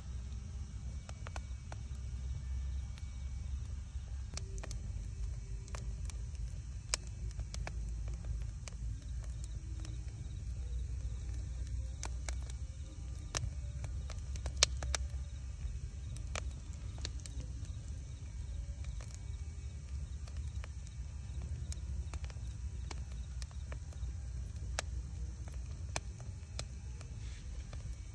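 Wood fire burning: a steady low rumble of flame with irregular sharp crackles and pops, the loudest pop about halfway through.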